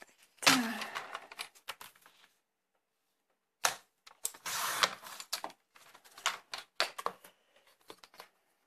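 Fiskars paper trimmer handled on a cutting mat, with white cardstock laid on and slid into position: a loud plastic clatter about half a second in, then after a pause a sharp click, a brief rustle of paper sliding, and a run of light clicks and taps.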